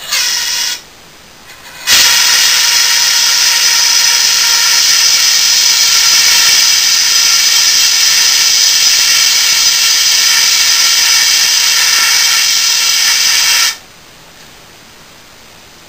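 CO2 fire extinguisher discharging through its horn into a sand-filled pipe: a short burst, then a steady hiss for about twelve seconds that cuts off suddenly. The carbon dioxide is gassing a sand core to harden it.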